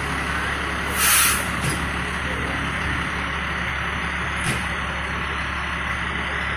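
Fire engine's diesel engine idling steadily, with a short hiss of released air from its air system about a second in and a light click a little later.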